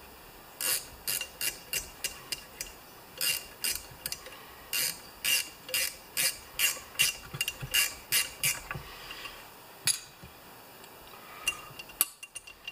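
Ratchet wrench clicking in a quick run of short strokes on the flywheel nut of a Homelite XP 1020 chainsaw, stopping about nine seconds in, with one last click at about ten seconds.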